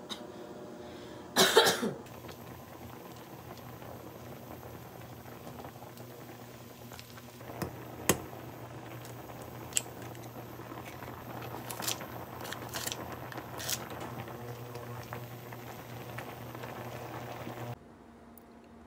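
Water at a rolling boil in a stainless steel pot of ramen on an induction cooktop, a steady bubbling with a low steady hum under it. A loud short burst comes about one and a half seconds in, and a few sharp clicks and knocks follow later on. The sound drops away suddenly near the end.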